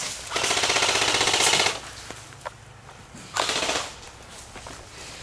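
Airsoft guns firing on full auto: a rapid burst lasting about a second and a half, then a shorter burst a little after the middle, with a few single pops between.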